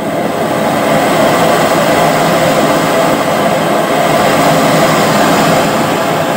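High-pressure LPG bhatti burner burning with a loud, steady rush of gas. It builds over the first second and fades near the end.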